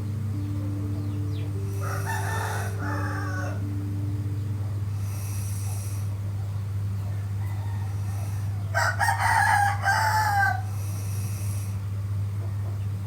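Two crowing calls like a rooster's: a shorter one about two seconds in and a louder, longer one near the nine-second mark that falls in pitch at the end. A steady low hum runs underneath.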